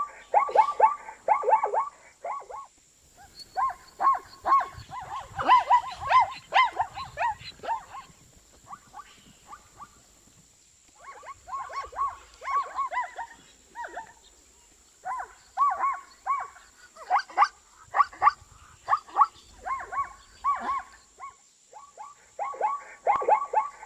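Zebra calling: quick runs of short, pitched yelping calls, several per second, in bouts separated by brief pauses.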